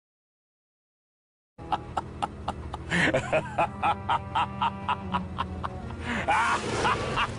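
Dead silence for about a second and a half, then a music clip starts with a steady beat of about three strokes a second. A wavering, voice-like cry rises over it twice.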